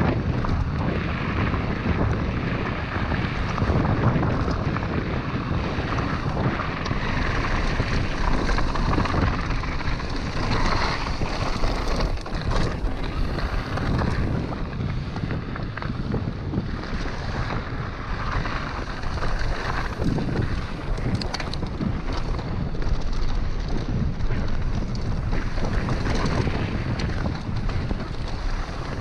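Wind buffeting the microphone of a handlebar-mounted action camera on a fast mountain-bike descent, over the steady rumble of tyres on gravel and dirt, with scattered short rattles and knocks from the bike.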